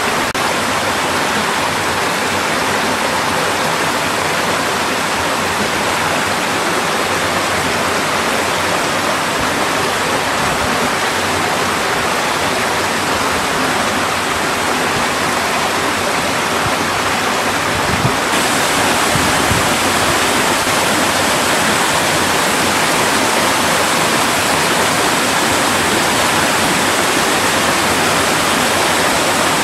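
Mountain valley stream rushing steadily. About two-thirds of the way through it becomes slightly louder and brighter, then continues unchanged.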